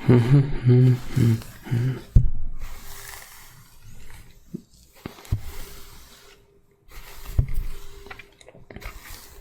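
A man humming a few low held notes for about two seconds, without words. Then soft scratchy rustling follows, broken by three dull thumps.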